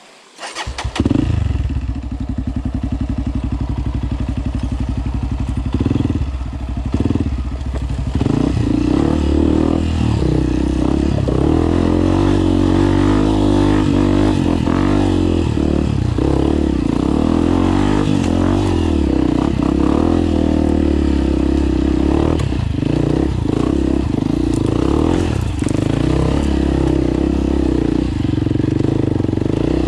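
Off-road dirt bike engine comes in abruptly about a second in, then runs under throttle. Its revs rise and fall repeatedly as the bike climbs a rocky trail.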